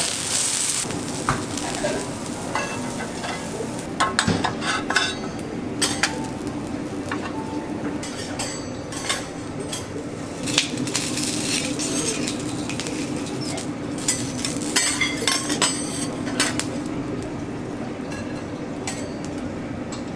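Metal spatulas clinking and scraping on a steel teppanyaki griddle, in clusters of sharp clicks, while vegetables sizzle on the hot plate.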